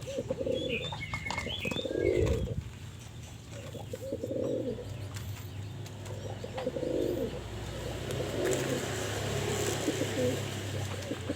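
Male homing pigeon cooing in courtship, a series of low rounded coos repeated every second or two, with a few brief high chirps in the first couple of seconds.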